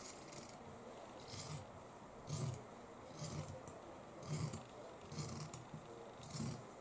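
Large fabric scissors cutting through white fabric in a series of crisp snips, about one a second, as wave shapes are cut freehand.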